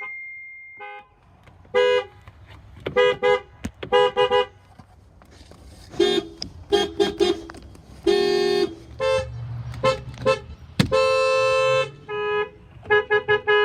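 Vehicle horns honking: bursts of short, quick toots and a few longer blasts, the longest about a second. The pitch changes from one burst to the next, so several different horns are sounding.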